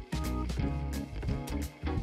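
Background music with a steady beat, bass and drums.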